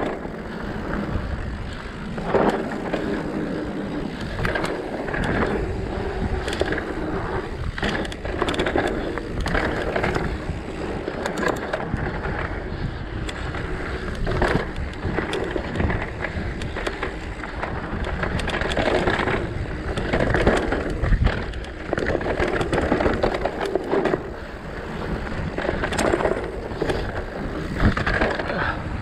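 Mountain bike rolling fast down a dirt trail: tyres running over dry dirt and small rocks, with frequent rattles and knocks from the bike over bumps and a steady low rumble.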